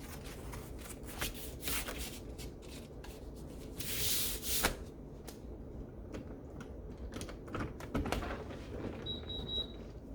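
Pleated window blinds being handled: irregular clicks and rattles, with a short rustling burst about four seconds in. A brief high beep sounds near the end.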